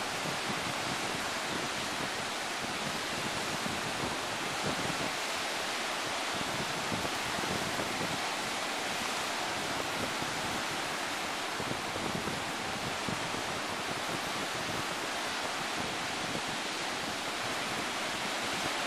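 Surf breaking along the beach, a steady unbroken hiss of waves, with some wind noise on the microphone.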